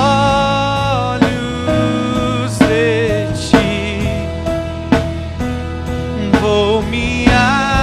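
Christian worship song: a singer holding long, wavering notes over a band with a steady drum beat.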